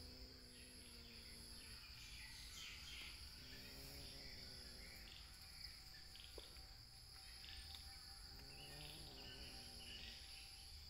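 Faint insect chorus: a steady high drone with an evenly pulsing cricket-like chirp above it. Three faint drawn-out tones rise and fade beneath it.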